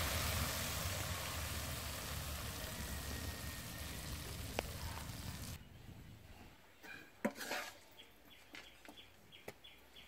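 Corn kernels and minced pork sizzling in a steel wok as they are stirred, the sizzle slowly fading. A little past halfway it cuts off suddenly, leaving a quiet background with a few sharp clicks.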